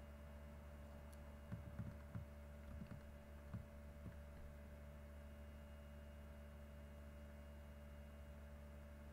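Near silence over a steady electrical hum, with a handful of soft taps and clicks about one and a half to four seconds in.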